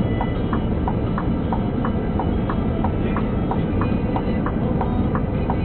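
Hazard-warning flasher relay clicking in a steady tick-tock, about three clicks a second alternating between a higher and a lower click, over the low steady running of an idling engine, heard inside the cab of the stopped vehicle.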